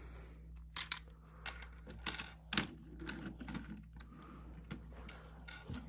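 Sharp, irregular clicks and taps of hard plastic as a Transformers action figure is handled, with a faint steady low hum underneath.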